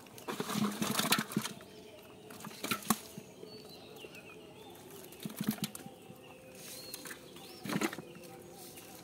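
Irregular knocks and rustles in a few short clusters, with birds chirping faintly in the background.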